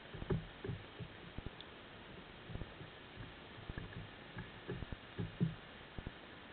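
Irregular low thuds and knocks, several a second at times, over a steady hiss, picked up underwater as cunner crowd and nip at a baited lobster trap and bump the trap and camera.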